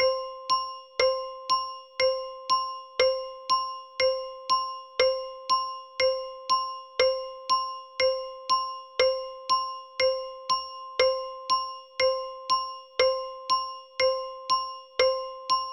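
A suspense sound-effect loop: one bell-like electronic ping repeated about twice a second, each strike dying away, in an even alternating loud-soft pulse.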